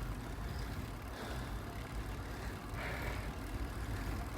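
Steady low rumble of wind on the microphone and tyre noise from a bicycle being ridden.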